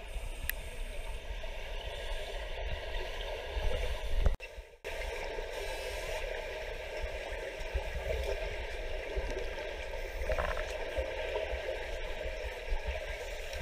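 Underwater sound in a swimming pool: scuba divers' exhaled regulator bubbles gurgling over a steady watery rumble, with a brief dropout about four and a half seconds in.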